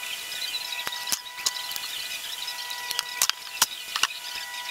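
Small plastic and metal parts of an RC helicopter frame clicking and tapping as they are taken apart by hand, about half a dozen short clicks, over a steady hiss with a faint steady whine.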